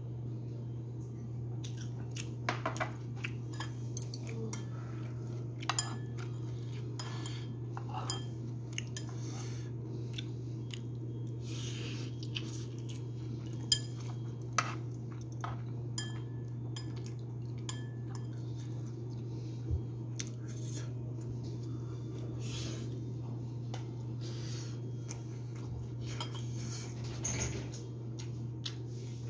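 Metal spoon scraping and clinking against a black coated pan as kimchi fried rice is scooped up, in scattered short clicks throughout, the loudest a little before halfway through. A steady low hum runs underneath.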